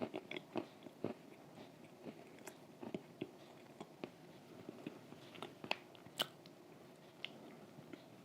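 Close-up eating sounds of crunchy homemade cookies: a quick run of sharp crunching bites in the first second, then scattered single crunches and mouth clicks while chewing.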